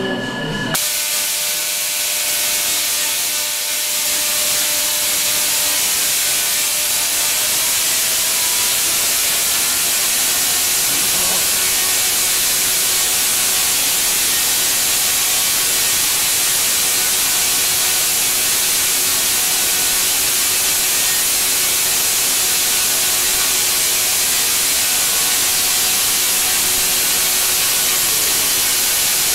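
Tesla coil firing, its spark streamers making a loud, steady hiss that starts suddenly about a second in and grows a little louder over the next few seconds.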